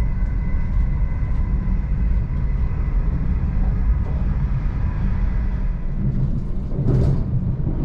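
Electric Class 745 Stadler FLIRT multiple unit running, heard from inside the passenger cabin: a steady low rumble with a faint steady whine in the first few seconds. A brief rushing burst comes about seven seconds in.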